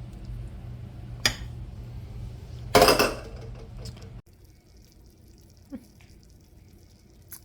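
Cookware clatter: a short clink about a second in and a louder clatter around three seconds in, over a steady low hum that cuts off suddenly a little past four seconds.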